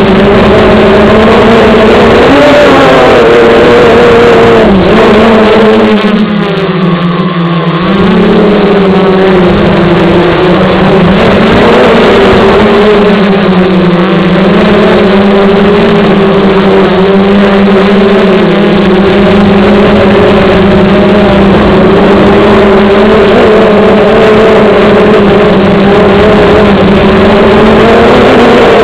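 Electric motors and propellers of an FPV drone heard up close through its onboard camera's microphone: a loud, steady buzzing hum whose pitch wavers up and down with throttle. About six seconds in it drops lower and a little quieter for a couple of seconds, then picks back up.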